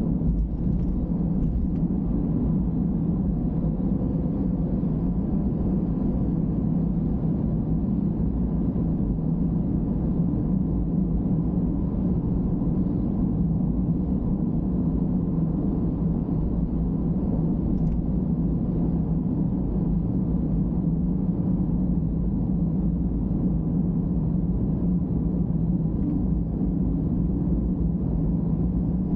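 Steady road and engine rumble of a car cruising at expressway speed, heard from inside the cabin.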